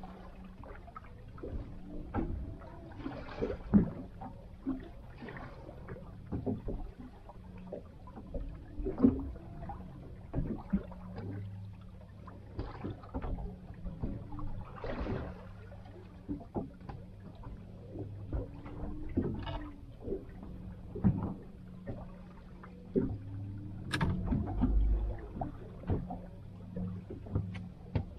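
Water slapping and lapping against a small boat's hull as it rocks, with scattered knocks and creaks over a steady low hum. A sharper knock comes near the end.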